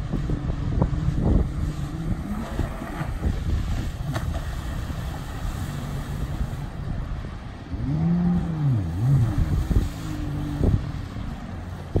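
2019 Kawasaki STX-15F jet ski's four-stroke engine running on the water, revving up and down twice about eight seconds in.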